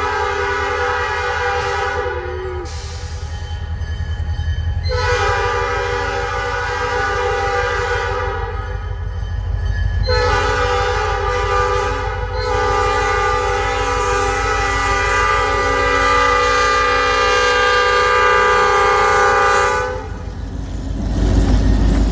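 Freight locomotive's air horn blowing the grade-crossing signal: two long blasts, a short one and a final long blast, with another blast starting near the end. A steady low rumble of the locomotive and rolling train runs underneath.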